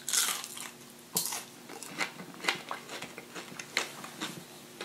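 Close-up eating sounds of a fried onion ring: a bite at the start, then crisp, irregular crunches about once a second as it is chewed.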